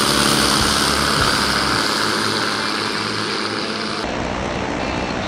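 Cessna 170's six-cylinder Continental engine and propeller running at full takeoff power as the airplane lifts off and climbs out. The sound changes abruptly about four seconds in and turns duller.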